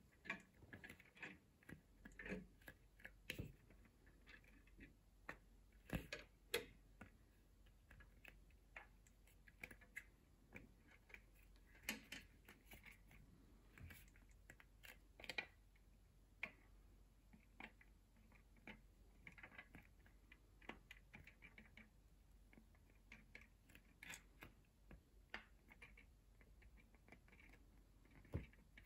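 Perplexus Star Wars Death Star 3D maze ball being turned in the hands: its marble rolling and clicking against the plastic tracks inside the clear sphere. The sound is faint, irregular small clicks and taps.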